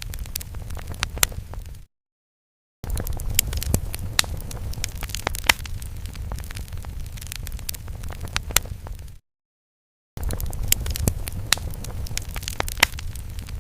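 Fire crackling sound effect: a steady low rumble of flames with many sharp pops and snaps. It drops out to dead silence twice, for about a second each, about two seconds in and about nine seconds in.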